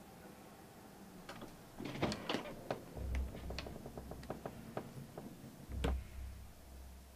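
Quiet at first, then a scatter of light clicks and knocks from about a second in, with two low thuds about three seconds apart.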